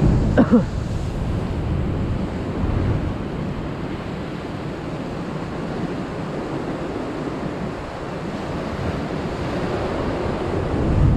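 Ocean surf washing and breaking against a rocky lava ledge, with wind buffeting the microphone. A brief pitched sound comes about half a second in.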